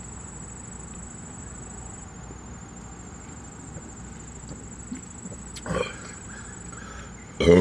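Quiet stretch under a steady high-pitched trill, with a short breath about five and a half seconds in. A loud burp breaks out at the very end, after a can of cream soda has been chugged.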